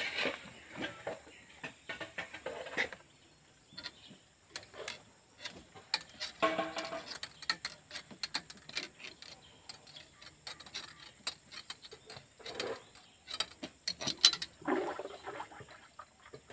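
Irregular metallic clicks and clinks of hand tools and parts being handled on a tractor's cast rear hydraulic housing, with a few louder knocks.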